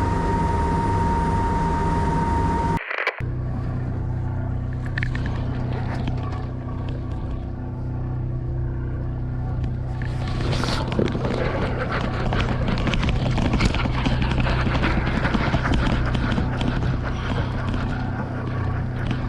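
A fishing boat's engine running steadily with wind and sea noise on deck, and scattered clicks and knocks of gear. The first three seconds hold a steady high whine that cuts off abruptly.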